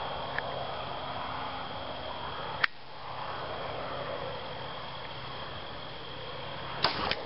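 A single bow shot near the end: a sharp snap of the string on release, then about a quarter second later the knock of the heavier arrow hitting the hog carcass. A sharper single click comes earlier, about two and a half seconds in, over a steady background hum.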